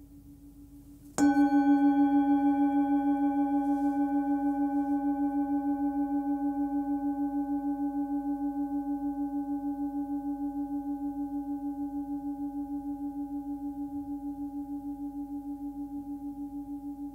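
Hand-forged 15 cm Full Moon Tibetan singing bowl tuned to about 287 Hz (D), struck once about a second in, then ringing with a deep fundamental and several higher overtones that fade slowly with an even wavering. Before the strike, the faint tail of an earlier ring.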